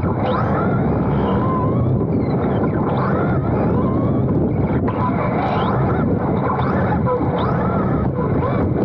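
Team Associated B6.4 RC buggy heard from its onboard camera while running: a dense, steady rumble of tyres, drivetrain and wind, with thin whines that waver up and down in pitch.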